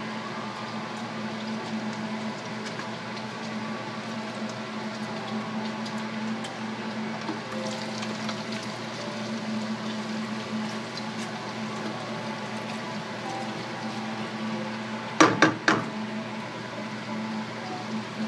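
Chopped bacon sizzling and crackling in hot fat in a frying pan, over a steady low hum. Near the end come three sharp knocks in quick succession.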